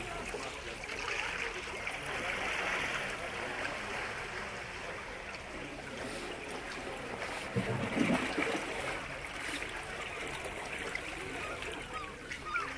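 Small sea waves washing and splashing against shoreline rocks, swelling and ebbing, with a louder low surge about eight seconds in.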